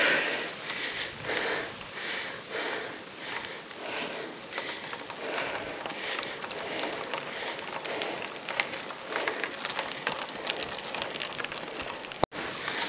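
Gravel bike climbing a steep hill: a steady crackle of tyres over a rough surface with many small clicks, swelling about once a second. The sound cuts out for an instant near the end.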